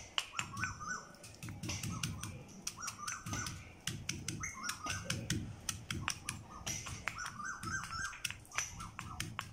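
Stone pestle pounding shallots in a stone mortar: irregular dull thuds with sharp knocks and crunches as the bulbs are crushed. Birds chirp in short repeated calls in the background.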